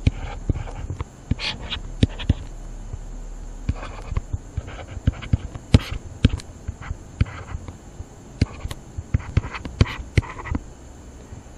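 Irregular sharp clicks and taps, a few each second, with short soft scratchy noises between them, from the input device used to handwrite digits on screen.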